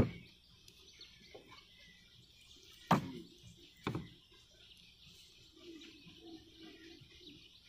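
A bamboo pole knocking twice against the boat, about a second apart, as the small boat is poled through shallow water, with faint bird chirping behind.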